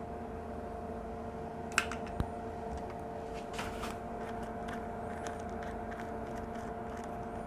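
A steady, even hum from a small appliance, with two sharp clicks about two seconds in and a few short faint hisses soon after.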